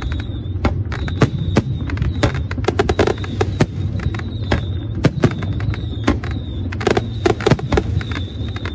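Aerial firework shells bursting: sharp bangs and crackles in quick, irregular succession, several a second, over a steady low rumble.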